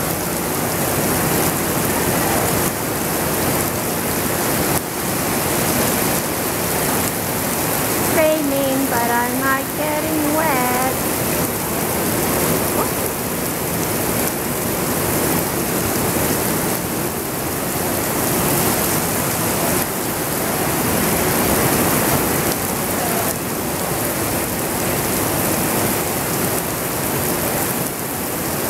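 Artificial rain in an indoor rain-room attraction, a steady downpour of water from ceiling nozzles splashing onto the floor grating, with an even hiss that doesn't let up.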